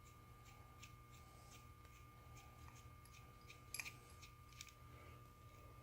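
Near silence over a faint steady hum, with a few light metallic clicks from a wrench and steel machinist jack being handled; the clearest come close together a little under four seconds in, and another follows near five seconds.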